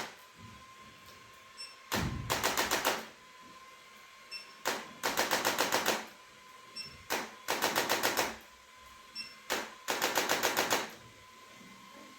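A device rattling off rapid mechanical taps, about eight a second, in four bursts of about a second each, roughly every two and a half seconds. A single click comes just before each burst, and a faint steady high-pitched hum runs underneath.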